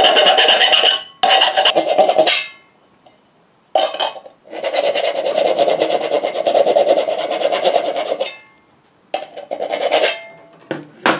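Metal file rasping against the edge of a hole drilled in a tin can, deburring it: bursts of quick filing strokes separated by short pauses, the longest run lasting about four seconds in the middle.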